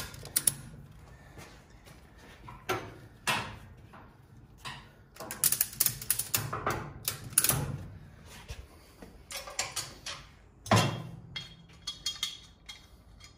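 Metal hand tools working on a motorcycle's front axle and forks: scattered clicks and clanks, a quick run of clicks in the middle, and one louder knock about eleven seconds in.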